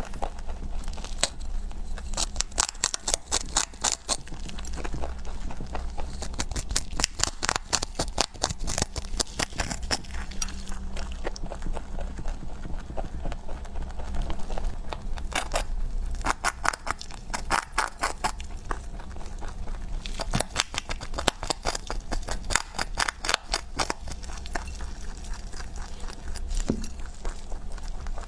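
Rabbit chewing crunchy food: runs of rapid crunching clicks lasting a few seconds each, with short pauses between, over a steady low hum.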